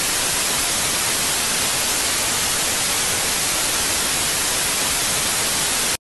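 TV static sound effect: a steady, loud hiss of white noise that cuts off abruptly at the end.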